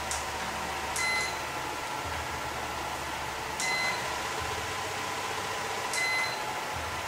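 Handheld controller of a slimming massage belt beeping as its buttons are pressed: three short high beeps, each with a click, about two and a half seconds apart. A low hum underneath changes in steps every couple of seconds.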